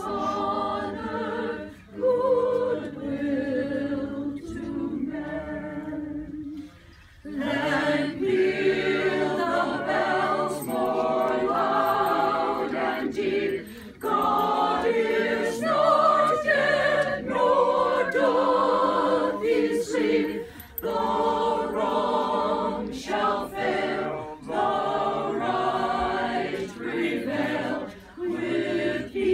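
A small group of carolers singing a Christmas carol unaccompanied, in sung phrases broken by short breaths, the longest pause about seven seconds in.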